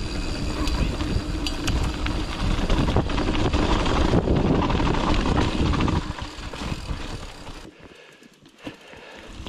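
Giant mountain bike rolling fast down a dirt trail: tyre noise, rattling of the bike and wind on the microphone. It eases off about six seconds in and goes much quieter near the end, with a few scattered clicks.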